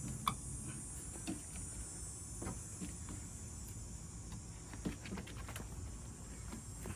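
Light clicks and knocks of a car door's corner glass and window track being handled as the glass is worked out of the rear door, a few scattered ones and then a run of small ticks, over a steady faint hiss.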